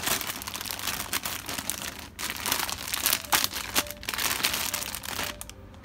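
Clear plastic packaging around a mesh laundry bag crinkling irregularly as it is handled, with a brief pause about two seconds in.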